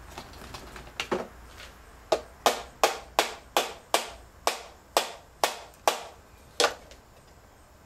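A gauge in a 1973–87 Chevy truck instrument cluster being tapped to push its prongs fully home into the circuit board: a couple of light taps, then about a dozen sharp knocks, two or three a second, stopping shortly before the end.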